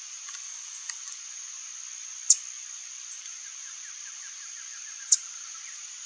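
Swallow tanager giving two sharp, high, very short call notes about three seconds apart, over a steady high-pitched insect drone.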